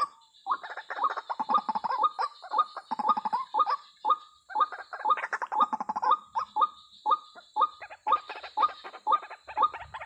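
White-breasted waterhen calls repeated over and over. The calls come in quick runs through the first half, then space out to about two a second after the middle.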